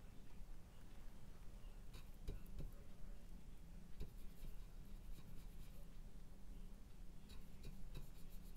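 Faint scratching and dabbing of a large bristle brush working oil paint onto a textured painting panel, with light ticks and scrapes in small clusters: around two seconds in, around four seconds, and several near the end. A steady low hum runs underneath.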